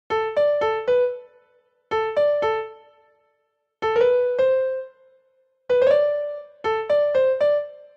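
Sampled piano notes played back from a MIDI sequencer's piano roll. They come in five short runs of two to four notes each, around the C5 range, which approximate the pitch contour of the spoken word "Nihonkoku".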